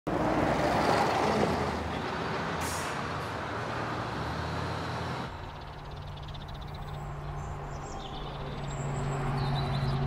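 A bus passing close by, a loud rush of tyre and engine noise with a brief high hiss about two and a half seconds in. After a sudden change about five seconds in, a bus's engine hum approaches steadily, growing louder toward the end.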